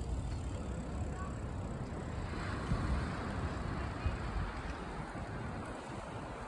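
Wind buffeting the phone's microphone in uneven low rumbles, with ocean surf washing in the background.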